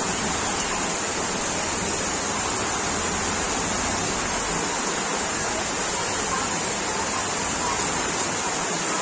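Floodwater rushing down a street, a steady, even rush of flowing water.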